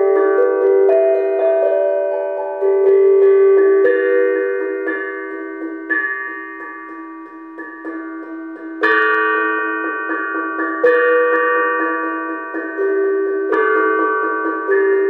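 Small steel drum struck with mallets, playing a slow melody of ringing notes that hold on and overlap. The playing eases off about seven to eight seconds in, then comes back with stronger strikes about nine and eleven seconds in.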